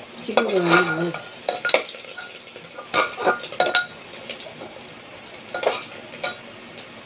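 Metal spoon scraping and clinking against a cooking pot as food is stirred, in irregular strokes with gaps, over a low frying sizzle.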